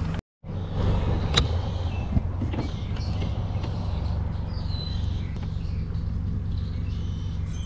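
Bass boat's outboard motor idling steadily at low speed, a constant low hum, with a few light clicks. The sound cuts out completely for a moment just after the start.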